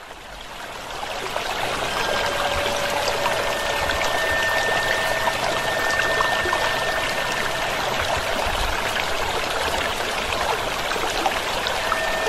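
Fountain water splashing and pouring steadily, fading in over the first couple of seconds.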